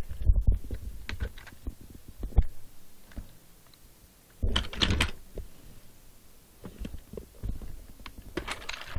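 Hard plastic toy robot pieces being handled: irregular clicks, taps and knocks, with a denser clatter about four and a half seconds in.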